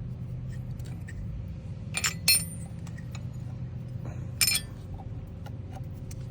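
Small metal parts clinking against each other while the intake manifold is taken apart: three sharp clinks, two close together about two seconds in and one more a couple of seconds later, each ringing briefly, over a low steady hum.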